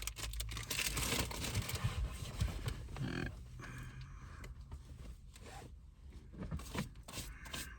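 Plastic bag rustling and crinkling as a caramel apple is wrapped up in it, busiest for the first few seconds and then fainter and sparser.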